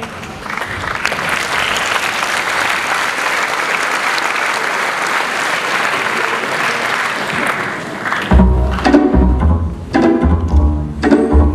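Audience applauding steadily. About eight seconds in, music starts, with a heavy bass pulse about once a second and pitched notes above it.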